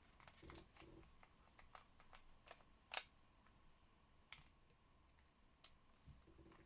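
Faint, scattered small clicks and taps of a Nintendo Switch Joy-Con being handled, a sharper click about three seconds in, over near-silent room tone.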